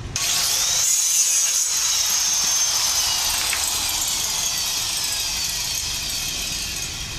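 An electric power tool starts suddenly and runs with a high whine that slowly drops in pitch as it goes, fading a little near the end.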